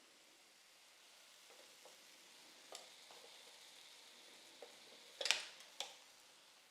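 Faint sizzling from a just-unplugged electric pan after cooking pancakes, with a few light clicks of utensils and a louder clatter about five seconds in.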